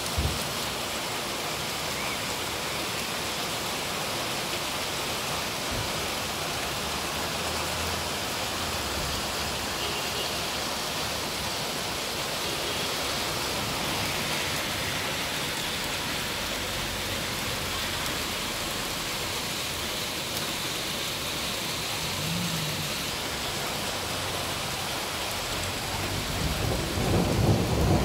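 Heavy rain mixed with hail falling steadily on the street and parked cars, a dense even hiss. About two seconds before the end, thunder begins to rumble, growing louder.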